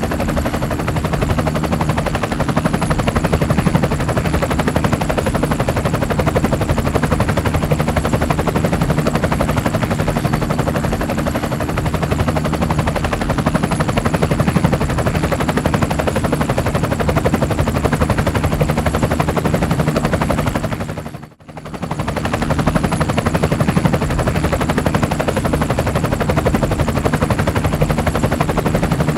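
Multirotor drone's propellers and motors running: a loud, steady buzz with a thin high whine on top. It drops out for a moment about three-quarters of the way through, then comes straight back.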